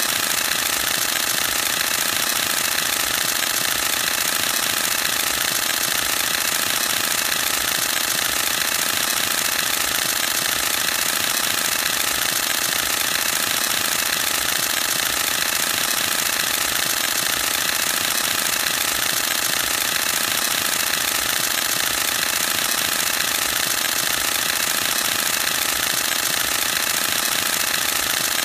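Canon EOS-1D X Mark II firing a continuous high-speed burst: the mirror and shutter cycle in a rapid, unbroken mechanical clatter at a steady rate.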